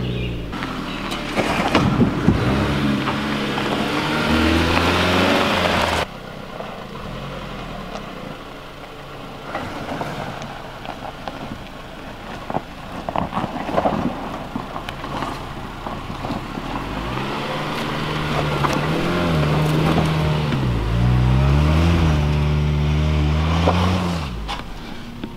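2017 Jeep Cherokee Trailhawk engine revving under load as it climbs a dirt trail, its pitch rising and falling, loud in the first six seconds and again near the end. In between it is quieter, with tyres crunching over dirt and stones.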